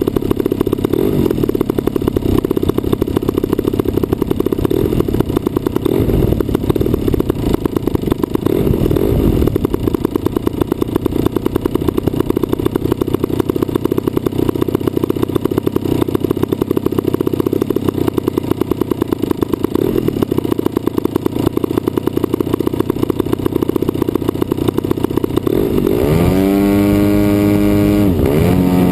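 DLE 55cc single-cylinder two-stroke petrol engine of a radio-controlled model plane running steadily. About 26 seconds in, its pitch drops and swings back up as the throttle is changed.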